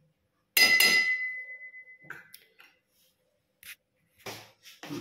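Stainless-steel kitchenware clinking: one sharp metal strike about half a second in that rings on for over a second, then a few lighter clinks.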